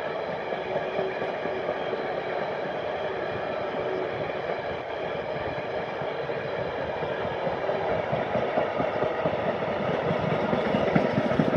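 Empty container flat wagons of a freight train rolling past on the track: a steady wheel-on-rail rolling noise with a few faint steady tones over it, growing louder with more clatter near the end.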